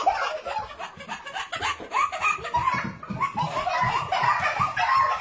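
A toddler laughing hard in quick, repeated bursts.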